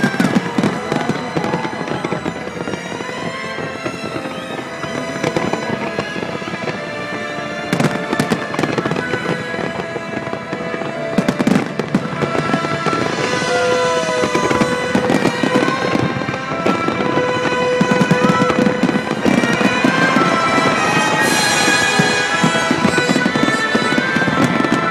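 Fireworks display: many shells bursting in a dense, continuous crackling and popping, with steady and gliding whistle-like tones over it.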